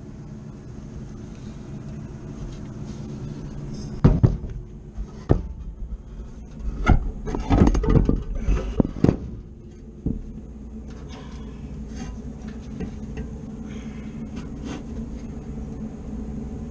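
Metal knocks and clanks, several in quick succession from about four to ten seconds in, as a replacement blower motor and its parts are handled and fitted in a rooftop HVAC unit. Under them is a steady low hum.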